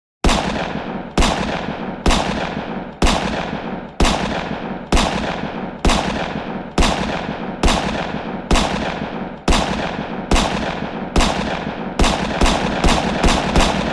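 Loud, close gunshots: a steady series of single shots about a second apart, each with a long echoing tail, then a quicker run of about six shots near the end.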